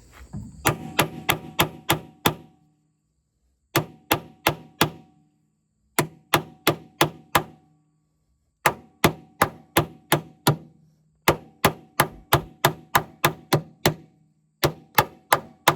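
Hammer beating on a steel pin-removal tool to drive a seized, corroded Jeep Wrangler JK door hinge pin out: sharp metallic strikes about three a second, each with a short ring, in runs of five to eight with brief pauses between.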